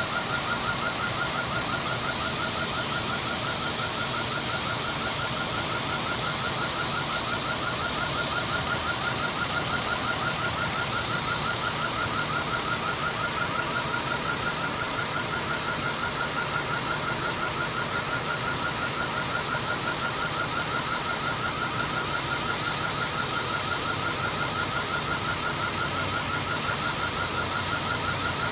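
An electronic alarm beeping rapidly and evenly at one pitch without a break, over the steady low rumble of idling fire engines.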